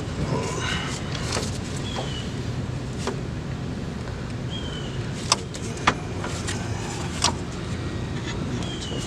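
Hand tools clicking and knocking against metal a few times while parts come off a car's engine bay, over a steady low rumble. A few short, high, falling chirps are scattered through it.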